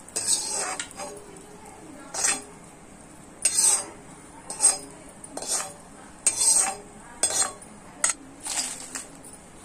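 Steel spatula scraping and stirring around an iron kadai, about once a second, as cumin seeds and garlic are dry-roasted.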